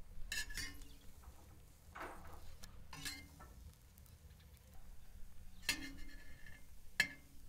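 A metal utensil clinking against cookware: about half a dozen separate sharp clinks, each with a short ring.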